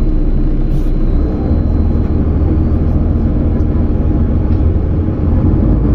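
Articulated city tram running past on street track, a steady low rumble.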